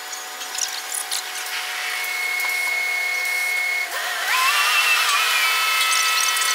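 Segment-erection gantry's hoist machinery whining as a precast concrete box-girder segment is lifted: a steady whine rises in pitch about four seconds in, then holds, over a constant mechanical hiss.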